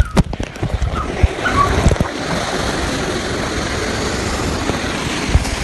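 Water rushing and splashing through an enclosed water slide tube as a rider goes down. Several heavy thumps come in the first two seconds, then a steady rush.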